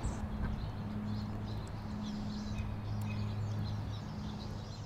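Garden ambience: small birds chirping now and then over a steady low hum.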